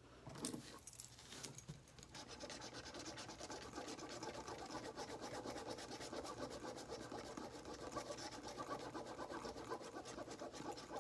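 Scratching the coating off a lottery scratch-off ticket: quick, rapid scraping strokes, a few scattered at first, then continuous from about two seconds in.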